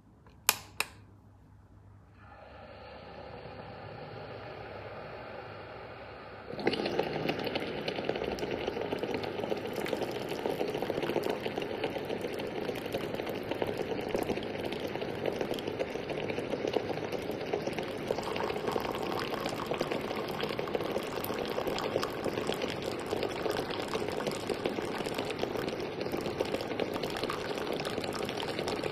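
Two clicks, then a small pump in a mini instant electric water heater hums for a few seconds. Then hot water starts pouring out of it in a steady stream that runs on.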